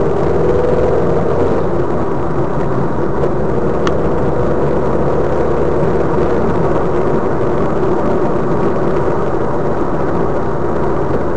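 Car engine and tyre-on-road noise heard from inside the cabin of a moving car, a steady drone with a hum in it.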